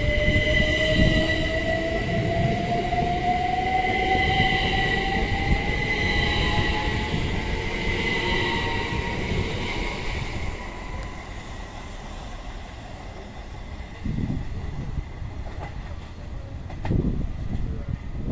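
Class 387 Electrostar electric multiple unit accelerating away from the platform, its traction motor whine rising steadily in pitch over a steady high whine. The whine fades after about ten seconds, leaving quieter rumbling as the train draws off.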